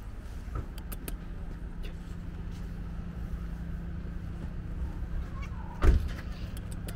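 Steady low rumble of a vehicle engine running, with a single loud thump about six seconds in.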